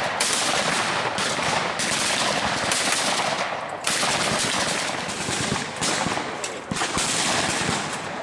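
Shotguns firing at clay targets, many shots from several stands overlapping into dense, almost unbroken gunfire.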